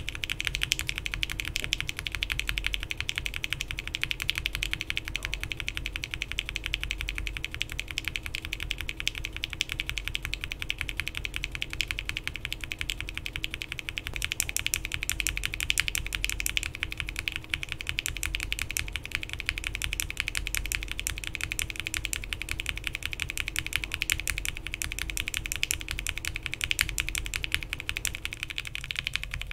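Continuous fast typing on a custom mechanical keyboard with linear switches: UHMWPE stems in Cherry MX Black bottom housings on long 67 g springs, typed with PBT keycaps on an FR4 plate, giving a dense stream of key clacks. About halfway through, the top housings change from Gateron Ink to Gateron Milky Yellow, and the clacks take on a slightly different, brighter character.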